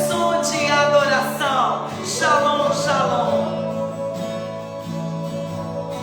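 Worship music: a voice singing over guitar and sustained instrumental chords, the singing dropping away about three seconds in and leaving the held chords.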